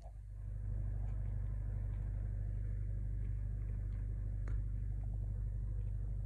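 A steady low mechanical hum, like an engine running, holding an even level throughout, with one faint soft crunch about four and a half seconds in.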